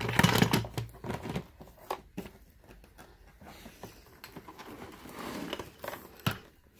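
Plastic parts of a Shark Navigator Lift-Away vacuum cleaner being handled and fitted back together: scattered clicks and knocks with rustling, busiest in the first second and again about five seconds in.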